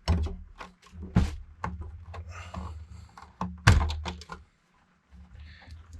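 Desktop computer parts being handled during disassembly: a series of plastic and metal clicks and knocks with some rustling, and the loudest thunk about three and a half seconds in.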